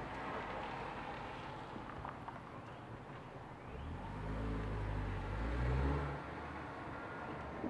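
A motor vehicle passing: a low engine rumble that builds over about two seconds and drops away suddenly, over steady outdoor background noise.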